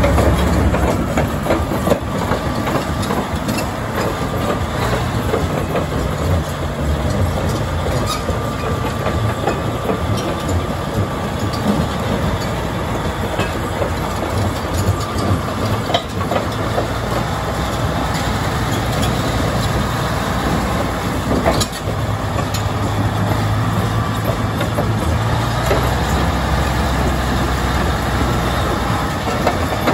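Caterpillar D9L crawler dozer's V12 diesel engine idling steadily, with a low hum that swells and eases now and then and a few light knocks.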